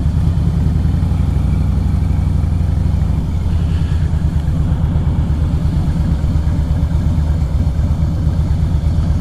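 Harley-Davidson V-twin motorcycle engine running with a steady low rumble as the bike rides slowly through town streets.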